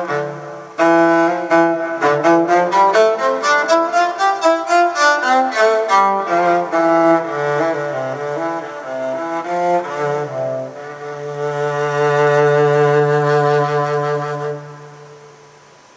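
Five-string Fourness Fuse electric violin played with a bow: a groove of quick, repeated bow strokes, then slower notes, ending on a long held low note that fades out about a second before the end.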